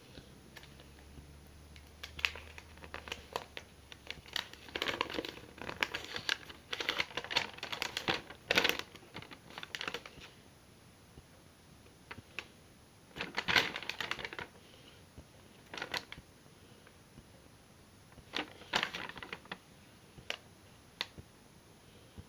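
Paper packaging handled in irregular bursts of rustling and clicks: a folded paper instruction leaflet from a hair-dye kit being pulled out and unfolded. The loudest rustles come about a third and two thirds of the way through.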